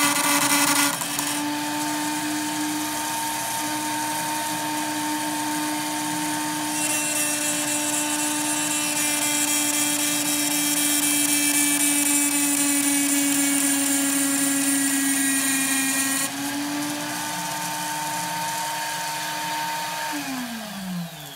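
Flex-shaft rotary tool running with a steady high whine while its ball-shaped cutter grinds a workpiece turning in a mini lathe's chuck, the grinding hiss harshest through the middle. Near the end the cutting stops and the rotary tool winds down, its pitch falling.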